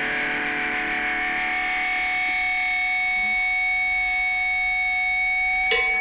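Music: a distorted electric guitar chord held and ringing steadily, with drum hits coming in near the end.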